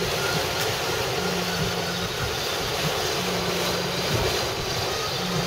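Heavy rain and road noise inside a car's cabin, a steady rushing hiss. A short low buzz repeats about every two seconds: an iPhone vibrating with an incoming call in its dashboard mount.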